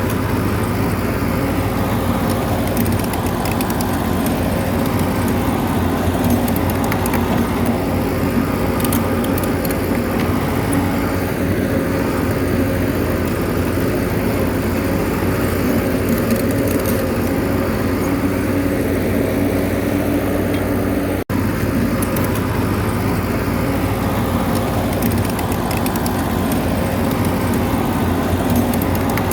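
Bulldozer's diesel engine running steadily under work, with scattered light clicks over it. The sound drops out for an instant about 21 seconds in.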